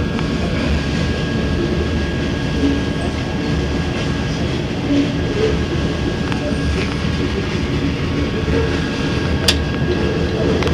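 Freight train of covered hopper cars rolling past, a steady rumble of wheels on rail, with a single sharp click near the end.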